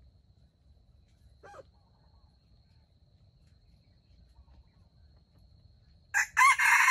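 Jungle fowl rooster crowing loudly, starting near the end, after a quiet stretch with one brief call about a second and a half in and a faint steady insect whine.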